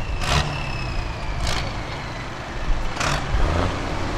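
A heavy pulling-tractor engine running at low revs, with a high whistle slowly falling in pitch and three short hisses about a second or so apart.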